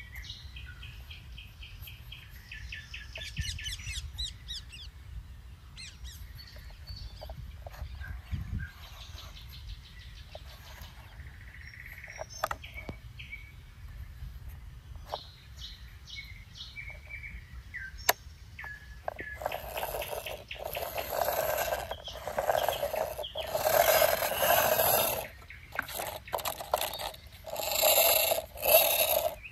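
Birds chirping in quick trills over a low rumble, with scattered clicks as the plastic toy excavator's arm and bucket are moved by hand. In the last ten seconds louder scraping noise from handling the plastic toy comes in bursts.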